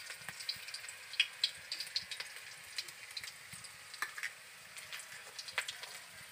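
Tempering spices and chopped green chilies sizzling in hot oil in a wok, a steady hiss with irregular sharp crackles and pops.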